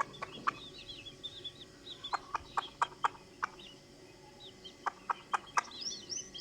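Baby chicks peeping in many short, high chirps that thin out mid-way and pick up again near the end, with a hen's short, sharp clucks scattered between them.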